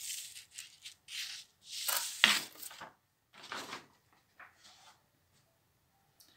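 Sheets of paper rustling and crackling as pages of handwritten notes are moved and turned by hand: about five brushing strokes, the loudest a sharp crackle about two seconds in, then fainter brushes.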